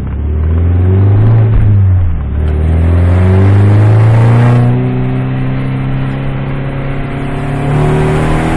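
Ford Focus 2.5 engine and exhaust revving, rumbling loudly. The revs rise and fall once, then climb again and hold steady and high.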